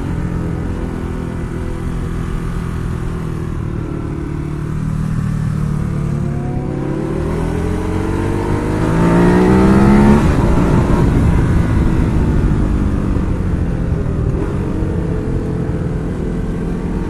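Ducati Hyperstrada's 821 cc twin-cylinder engine pulling under way, with wind noise. About eight seconds in the revs climb sharply to a peak, then fall back and settle.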